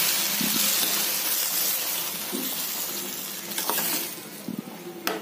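Chopped tomatoes sizzling in hot oil in a pan while being stirred with a metal spoon. The sizzle fades about four seconds in, and the spoon clinks against the pan a couple of times near the end.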